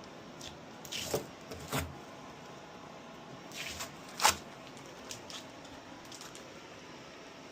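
Unboxing handling noises: a series of brief sharp knocks, scrapes and crinkles from packaging being moved and pulled away, the loudest about four seconds in, with quieter ones scattered through.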